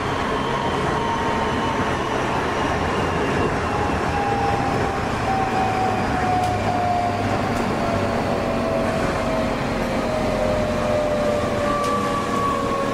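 Tokyo Metro Series 06 train running, its Toshiba IGBT-VVVF inverter traction motors whining over the rumble of wheels on rail. The whine falls steadily in pitch as the train slows, and a second, higher whine starts near the end and falls too.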